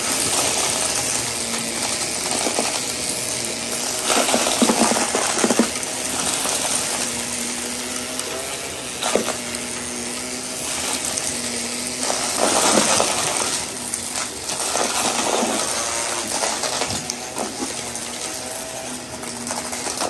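Shark upright vacuum running over carpet, its motor making a steady hum while beads, glitter and other small debris rattle and clatter as they are sucked up, in clusters of clicks every few seconds.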